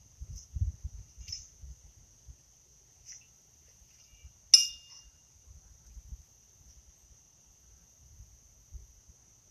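A single sharp metallic clink about halfway through, the sound of steel pitching horseshoes knocking together, over a steady high chirring of insects.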